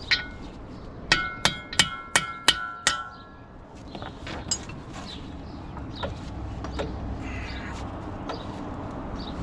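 Hammer blows on steel, each ringing with a clang: one strike, then a quick run of six at about three a second, then a few lighter knocks. The blows are working a car's front CV axle loose.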